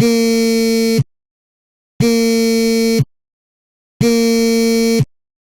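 Mobile phone vibrating on a hard table, buzzing against the surface in three one-second pulses about a second apart, the rhythm of an incoming call.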